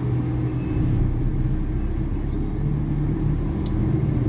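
Engine and road noise of a car being driven slowly along a city street, heard from inside the cabin as a steady low drone. The engine note rises briefly a little past halfway.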